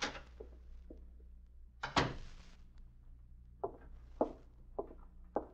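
Radio-drama sound effect of a door being shut: one solid knock about two seconds in with a short ring after it, then a handful of lighter taps roughly half a second apart, over a steady low hum from the old recording.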